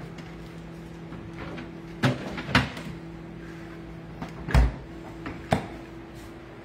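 Refrigerator being loaded: four knocks and thumps as items are set on its shelves and door bins and the door is handled, the loudest about four and a half seconds in. A steady low hum runs underneath.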